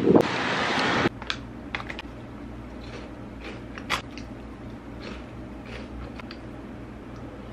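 About a second of wind and street noise, then crunchy snack being bitten and chewed from a plastic bag: a dozen short, scattered crunches and rustles, the loudest about four seconds in, over a steady low electrical hum.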